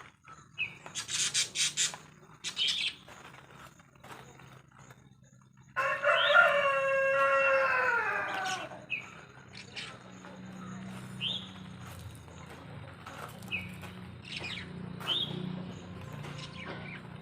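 A rooster crows once, a single long call of about three seconds starting about six seconds in, falling in pitch at the end. Short bird chirps come and go around it, and a few short hissing breaths or sniffs come near the start.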